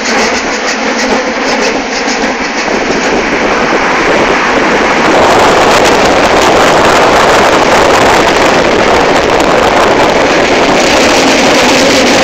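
Tram running at speed along its track: a loud, steady rush of wheel-on-rail and running noise mixed with wind on the microphone, getting louder about four to five seconds in.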